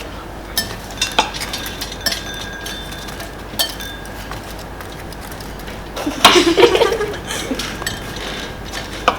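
Spoons clinking and tapping against bowls with scattered sharp ticks, as meringue and strawberries are mashed and mixed. About six seconds in comes a louder burst of clatter lasting about a second.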